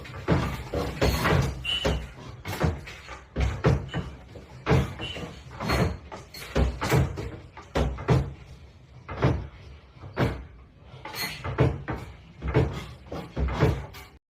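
Irregular bangs, knocks and rattles, one every half second or so, as doors and cupboards are shaken in a building during strong earthquake shaking. The sound cuts off abruptly just before the end.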